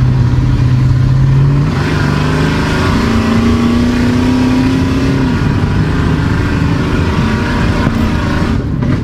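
Ford 5.8-litre petrol V8 running loud with no silencer, heard from inside the cab as the truck accelerates. The engine pitch climbs for a couple of seconds, then drops back about halfway through.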